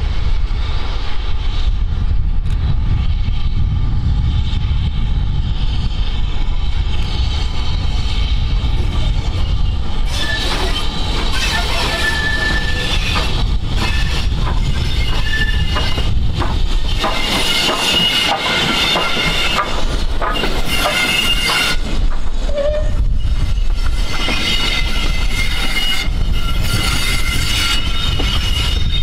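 BR Standard Class 4 4-6-0 steam locomotive No. 75014 and its train of Mk1 coaches approaching and rolling past with a low rumble. From about a third of the way in there is high steel-on-steel squealing and repeated clicking of wheels over rail joints as the coaches pass.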